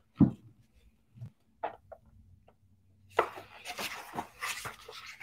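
A hardcover picture book being handled. A soft thump comes first, then a few faint ticks, and about three seconds in a couple of seconds of paper rustling as its pages are turned.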